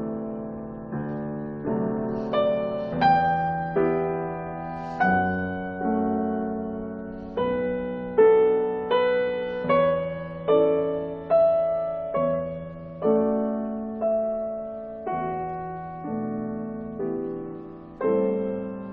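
Slow solo piano music: a melody of notes struck about once a second, each fading away, over lower held notes.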